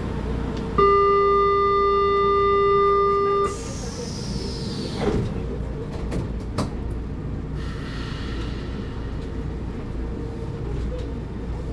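Door-closing warning tone of a São Paulo Metro Frota L train: one steady high beep held for nearly three seconds. It is followed by a falling hiss and two knocks as the sliding doors shut, then the steady running noise of the train.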